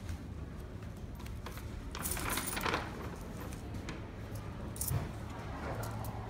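Loose coins clinking as they are taken from a small purse and counted out onto a cloth cash tray on a shop counter, with light handling rustle that is loudest about two to three seconds in.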